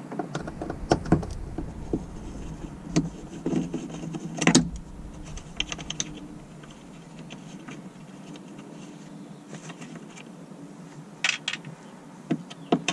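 T20 Torx screws being backed out of the sun visor mount above the windshield with a hand driver: scattered small metallic clicks, scrapes and rattles of the driver bit and the loosened screws, sharpest about 4.5 and 11 seconds in.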